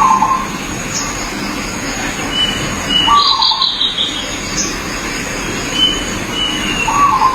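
Zebra dove (perkutut) cooing in short phrases about every three seconds. Other birds chirp and whistle higher up, over a steady high-pitched background tone.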